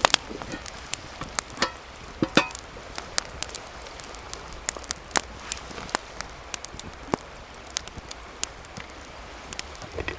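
Wood campfire crackling, with irregular sharp pops over a steady hiss.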